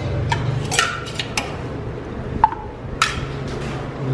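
Sharp clinks of a steel serving spoon and small steel bowls against a stainless-steel divided meal plate as side dishes are served, about half a dozen in all, one about two and a half seconds in ringing briefly. A steady low hum runs underneath.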